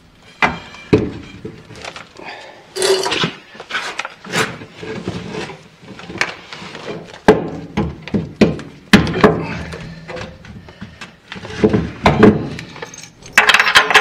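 Irregular metallic clinks and clunks of a wrench and bolts as a lever-type rear shock absorber is held up and fitted against the car's frame.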